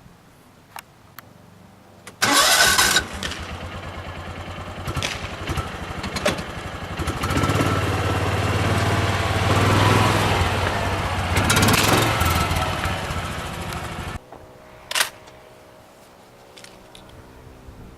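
A small engine starts with a loud burst, runs for about twelve seconds with its speed rising and falling, then cuts off abruptly. About a second after it stops there is a single short, sharp sound.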